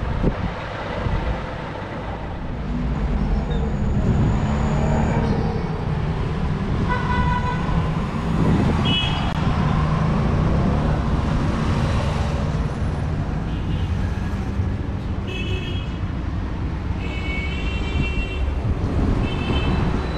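Street traffic: a steady rumble of engines with several short vehicle horn toots, a lower one about seven seconds in and a run of higher-pitched ones near the end.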